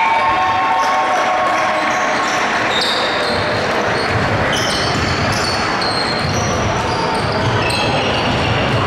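Many short sneaker squeaks on a hardwood basketball court over a steady hubbub of players' and spectators' voices in a gym.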